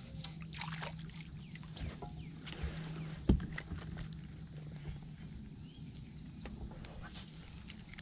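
A crappie being reeled in and swung aboard a boat: scattered clicks and rustles of rod, reel and handling, with one sharp knock about three seconds in, over a steady low hum. Faint high chirps near the end.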